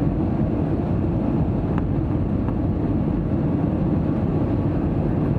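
Airbus A320 cabin noise in flight: a steady low drone of engines and airflow, heard from a seat during the descent toward landing. There are a couple of faint ticks about two seconds in.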